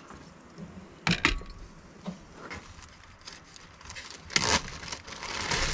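Plastic food packaging being handled and crinkled, with a few sharp knocks of items set down, the loudest about four and a half seconds in.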